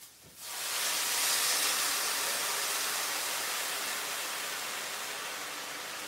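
Hot water pouring from a stovetop kettle into a glass measuring cup, heard as an even hiss of water and steam that starts sharply a moment in and slowly fades.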